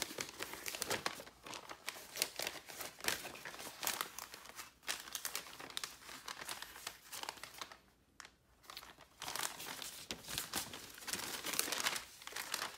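Thin paper of a large fold-out Hobonichi LifeBook guide crinkling and rustling in quick, irregular crackles as it is unfolded and smoothed flat, with a short lull about eight seconds in.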